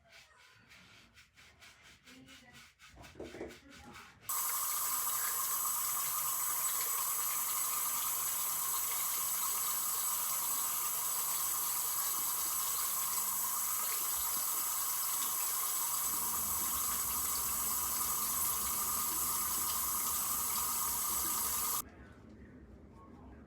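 A sink tap turned on about four seconds in, with water running steadily for around seventeen seconds before it is shut off abruptly. A few light clicks and knocks of handling come before it.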